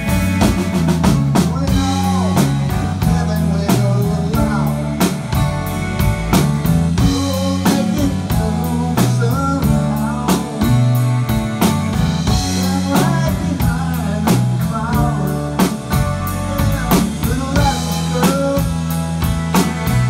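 Live rock band playing an instrumental passage with no vocals: electric guitar lead lines with notes that bend in pitch, over a steady drum-kit beat with snare and bass drum, and bass guitar.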